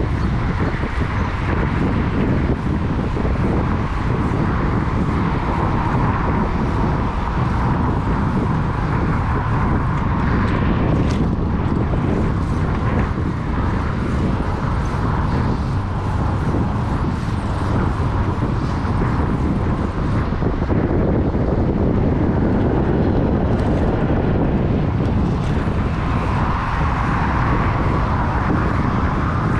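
Steady rush of wind and road noise from riding a bicycle through city streets, with traffic around.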